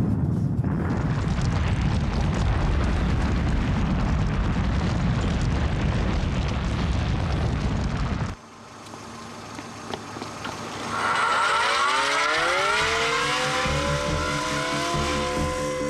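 A loud, steady low rumble for about eight seconds that cuts off suddenly, then music: many rising, gliding tones that swell and settle into held notes.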